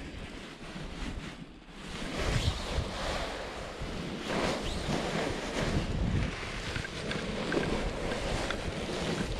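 Wind rushing over the microphone in paragliding flight, a gusty rumble that rises and falls and drops away briefly about a second and a half in.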